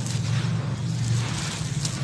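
Dry, dusty earth being crumbled and sifted by hand: a grainy crunching and pouring hiss with small crackles, one sharper crackle near the end, over a steady low hum.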